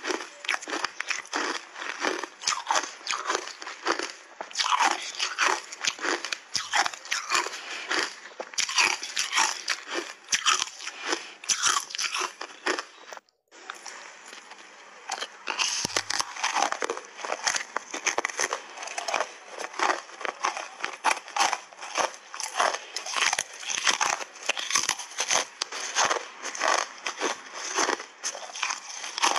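Hard frozen cola ice bars coated in matcha powder being bitten and chewed: a dense, continuous run of sharp, brittle crunches. The crunching breaks off briefly about halfway through.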